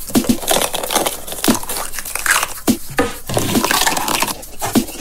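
Plastic nesting eggs handled and pulled open by hand: a run of sharp clicks and snaps with rustling between them.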